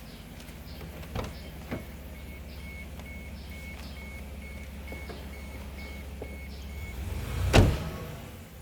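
A car's engine idles with a steady low hum. A dashboard warning chime beeps rapidly, about three to four beeps a second, for several seconds. A couple of light clicks come early, and a loud thump comes near the end.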